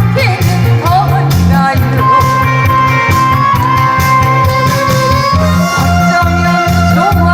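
Korean trot song performed live: a steady, pulsing bass beat under a melody of long held notes, with singing.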